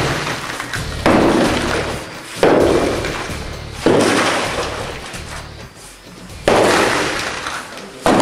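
Sledgehammer striking a wall of concrete breeze blocks: about five heavy blows a second or two apart, each dying away before the next.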